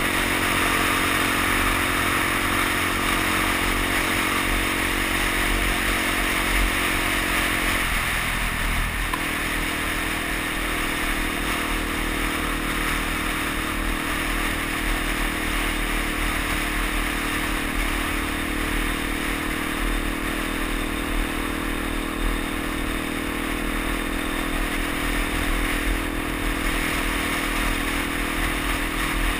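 Suzuki DR-Z dual-sport motorcycle's single-cylinder engine running at a steady cruising pace, with a brief break in the engine note about eight seconds in. A steady hiss of tyres on the gravel road runs underneath.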